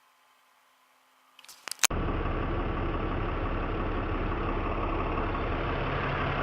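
A few sharp clicks, then about two seconds in a truck engine starts up running steadily with a low hum.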